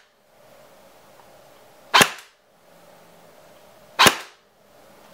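M4-style airsoft electric gun (AEG) with a Tokyo Marui muzzle velocity reduction adapter, firing single BB shots through a chronograph: two sharp shots about two seconds apart, the first about two seconds in and the second near the end.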